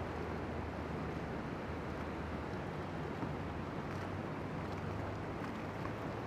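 Steady rush of river water flowing through whitewater rapids.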